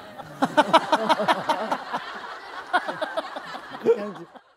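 Laughter: a run of quick ha-ha pulses in the first two seconds, then a few shorter laughs near the end.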